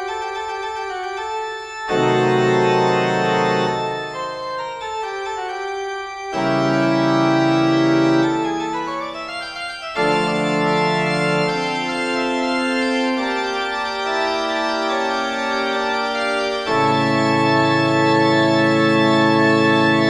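Organ music of held chords, with heavy bass chords swelling in about two, six, ten and seventeen seconds in.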